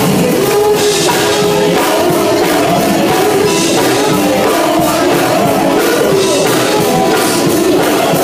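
Male gospel vocal group singing live through microphones, with instruments accompanying, loud and unbroken.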